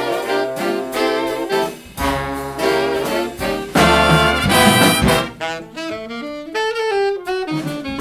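Jazz big band playing an ensemble passage, saxophones with trombones and trumpets in short punchy phrases. The loudest full-band swell comes about four seconds in, and the texture thins out after it.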